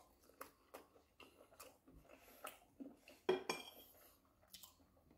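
Metal fork and spoon tapping and scraping on ceramic plates while eating: a series of faint, irregular clinks, the loudest a little over three seconds in.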